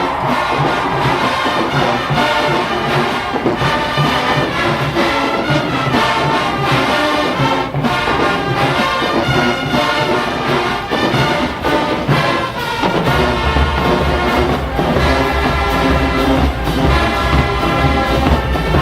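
Full marching band playing: trumpets and trombones over a drumline keeping a steady beat. A heavy low bass layer comes in about two-thirds of the way through.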